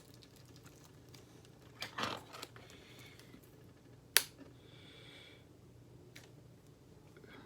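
Hands unboxing a three-disc DVD set: a short stretch of rustling and handling about two seconds in, then one sharp click about four seconds in, with fainter ticks after.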